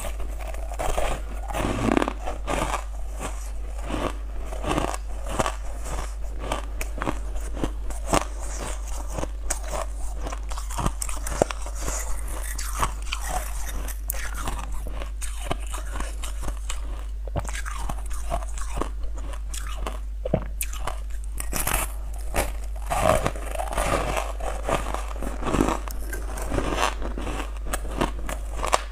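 Frosty shaped ice cubes being bitten and chewed, close to a clip-on microphone: a steady run of sharp crunches and crackling bites, over a constant low hum.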